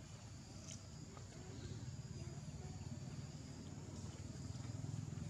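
Faint outdoor ambience: a low rumble that grows louder after about two seconds, over a thin high insect hum and a few faint ticks.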